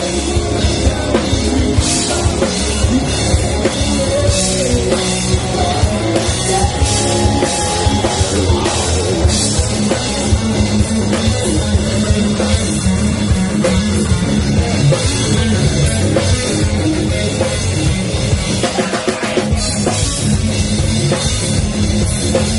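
Heavy rock band playing at full volume: distorted electric guitars over a drum kit, with a brief break in the low end near the end.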